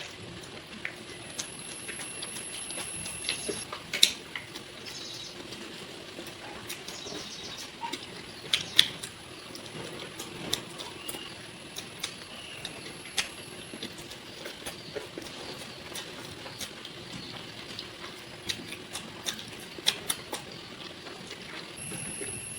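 Close-up eating sounds: wet chewing and lip smacks of someone eating chicken curry and idiyappam, a string of irregular sharp smacks and clicks over a steady hiss, with the loudest smacks about four seconds and about nine seconds in.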